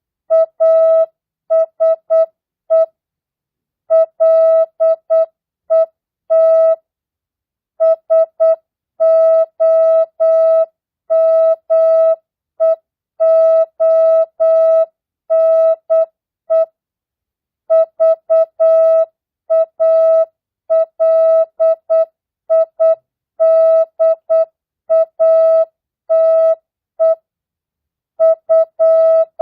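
Morse code (CW) practice: a single steady beep keyed on and off in short dots and longer dashes at 8 words per minute, with standard non-Farnsworth spacing and short pauses between words. It spells out mixed words, numbers and punctuation.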